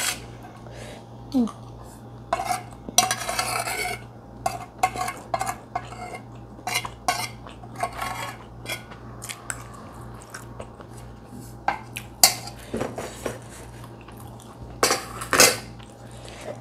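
Metal spoon scraping and clinking against a plate while eating, in a scattered string of short clicks and scrapes, with longer scrapes about three seconds in and near the end. A low steady hum runs underneath.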